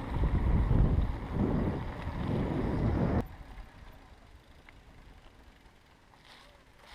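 Wind buffeting the microphone during a bicycle ride, a gusting low rumble that cuts off abruptly about three seconds in, leaving only a faint quiet background.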